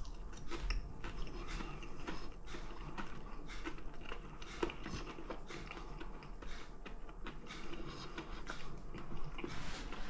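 A person chewing a mouthful of breaded fish finger, with many small irregular clicks of biting and mouth noise.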